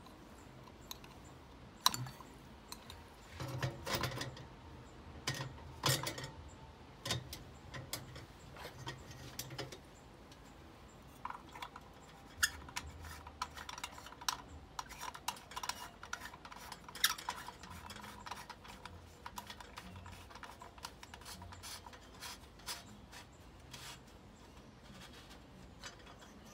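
Irregular light clicks, clinks and rattles of a small chandelier's brass fittings, chain and glass shade panels being handled and fitted together, with a handful of sharper clinks.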